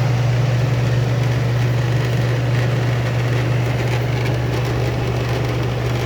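Two old air conditioners running together: a loud, steady low hum with an even rush of fan noise over it.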